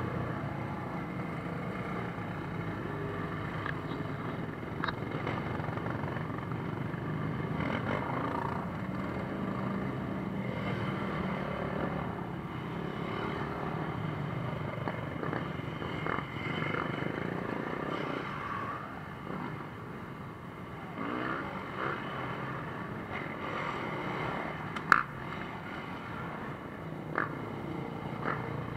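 Quad bikes and motorcycles riding slowly past one after another, their engines running and rising and falling in pitch. A single sharp crack stands out about 25 seconds in.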